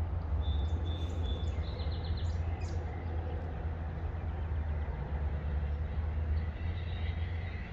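Steady low outdoor rumble with birds chirping in the trees: short high calls about half a second in and again near the end, and a quick trill around two seconds in.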